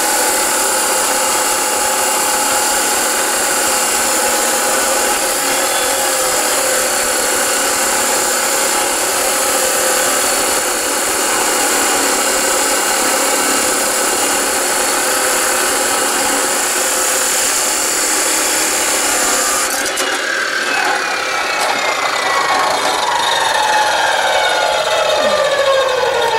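Ridgid 14-inch abrasive cutoff saw grinding through 1-1/2-inch square metal tubing with a 3/16-inch wall, a steady loud grinding for about twenty seconds. Then the grinding stops as the cut is finished, and the motor's whine falls in pitch as the wheel spins down.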